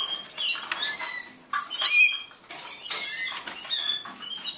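Canaries chirping in short, quick notes, several overlapping, with wings fluttering.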